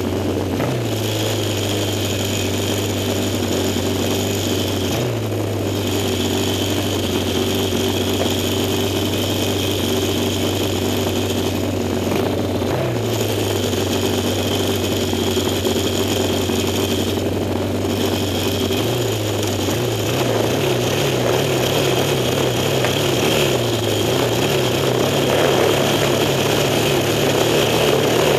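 Yamaha XS650 parallel-twin engine of a vintage racing sidecar running steadily. Its pitch steps up or down several times, and it grows a little louder over the last third.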